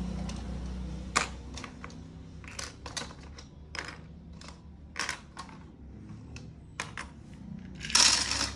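Plastic Lego bricks clicking and clacking as they are handled, pressed together and set down: irregular sharp clicks, a few at a time, with a louder clatter of pieces near the end.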